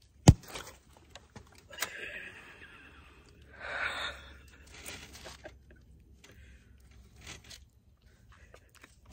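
A refrigerated dough can of Pillsbury pizza crust pops open with one sharp, loud pop about a third of a second in as its cardboard tube splits along the seam. Quieter scraping and rustling of the tube and its dough follow.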